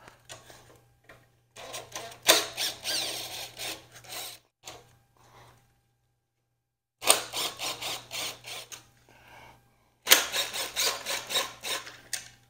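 A tool undoing the bolts that hold the plastic carburetor cover of a Briggs & Stratton Intek 206 engine. The sound is three spells of rapid clicking and rattling, with a moment of dead silence between the first and second.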